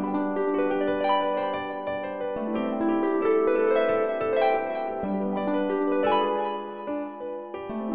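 Background music: a melody of quick plucked-string notes over lower held notes.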